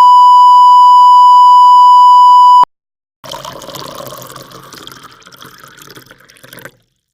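Censor bleep sound effect: a loud, steady 1 kHz beep that cuts off sharply about a third of the way in. After a brief gap comes a few seconds of noisy, water-like rushing that fades before stopping.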